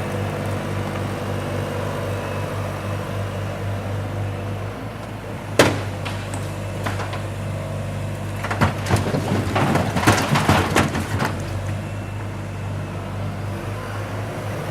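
Diesel loader engine running steadily, with a sharp bang about five and a half seconds in and a run of clanks and clatter from about eight to eleven seconds in.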